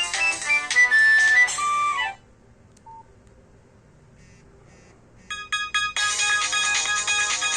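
Polyphonic Nokia ringtone melodies played through the Nokia C2-01's built-in speaker: one tune stops about two seconds in. After a short lull with a single faint beep, a few short repeated notes lead into the next ringtone, which starts about six seconds in.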